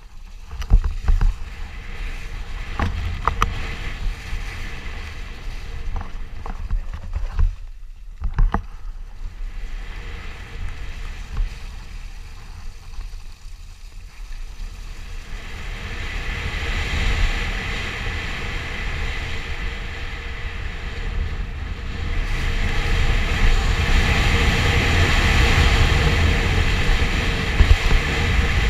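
Wind rushing over a helmet-mounted microphone and tyre noise from a fast electric bike on a wet, muddy dirt track, with scattered knocks from bumps in the first half. The rushing noise grows louder from about halfway through as speed builds.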